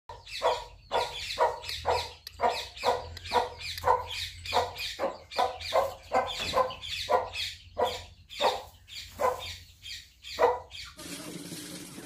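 Aseel rooster giving a long run of short, evenly repeated clucking calls, about two to three a second, over a low steady hum. The calls stop about 11 seconds in.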